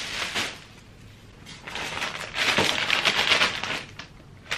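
Clear plastic packaging crinkling and rustling as it is handled and pulled off metal mesh shoe-rack panels, in two spells with a short lull between. A short low knock near the end.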